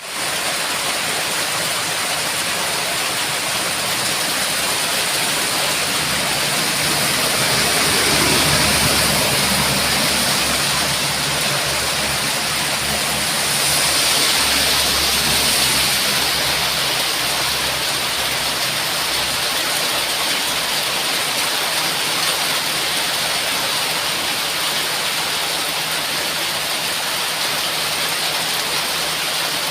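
Heavy rain falling in a steady, dense hiss. It swells louder twice, about a quarter and half of the way through, with a low rumble underneath through the middle.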